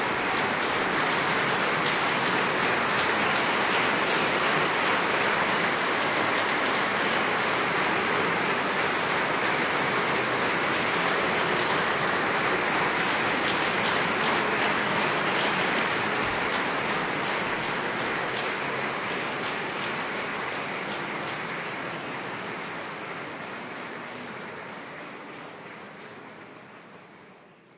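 Audience applauding: a dense, steady clatter of many hands clapping that gradually fades away over the last ten seconds or so.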